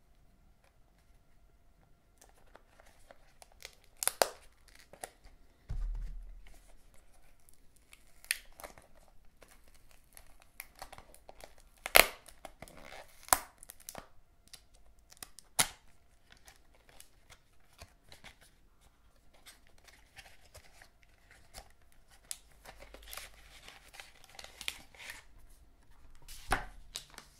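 Unboxing sounds: a craft knife slitting the tape seal on a small paperboard box, then the box being worked open and a paper packet slid out. Scratching, tearing and crinkling of card and paper, broken by several sharp clicks and a dull thump about six seconds in.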